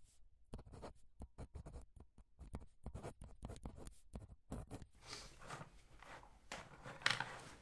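Ballpoint pen writing on the paper of a ring-binder diary: a quick run of short scratching strokes. About five seconds in it turns to a denser, steadier scratching, with one louder scrape near the end.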